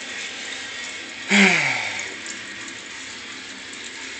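Beer running from an auto-siphon tube out of a glass carboy into a toilet bowl in a steady splashing stream. About a second and a half in there is one brief, loud sound that falls in pitch.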